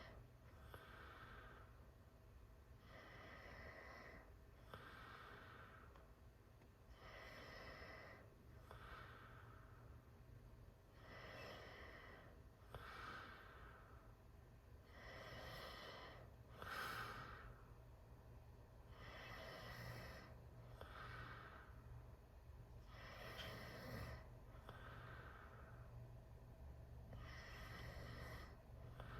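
A teenager snoring through a wide-open mouth: quiet, raspy breaths in and out, each cycle a longer sound followed by a shorter one, repeating about every four seconds.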